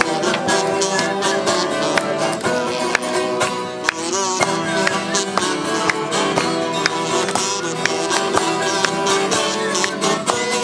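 Live acoustic guitar music, plucked and strummed: an instrumental solo between the choruses of a folk sing-along song.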